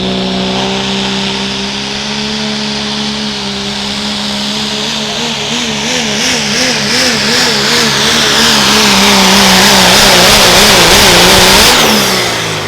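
Turbocharged diesel pulling truck under full load on the sled. The engine holds high revs, then its pitch wobbles up and down about two or three times a second while it gets louder and a hiss builds. Near the end the revs drop sharply as the engine is let off.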